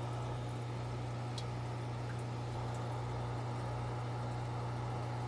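Steady low hum over a faint even hiss from running aquarium equipment, with one faint tick about a second and a half in.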